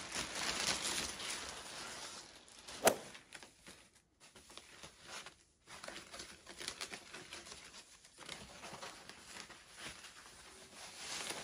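Faint rustling and crinkling of plastic wrapping and tissue paper as a leather messenger bag is pulled out of its plastic bag and handled, with one sharp tap about three seconds in.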